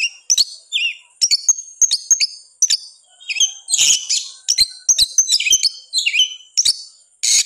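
Oriental magpie-robin (kacer) singing hard in an agitated, fighting mood. It is a fast, near-unbroken string of short, high whistled phrases, sliding notes and harsh chirps, several a second.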